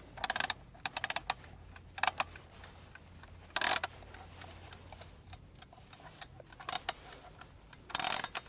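Mechanical alarm clock being wound: the winding key's ratchet clicks in short, irregular bursts of rapid clicks, about six times, over the clock's faint ticking.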